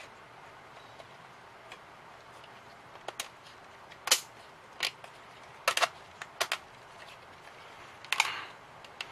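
Thin laser-cut 3 mm MDF pieces clicking and knocking against each other as they are handled and pressed into the slots of a wooden model car body. There is a scatter of about eight sharp clicks, some in quick pairs, starting about three seconds in.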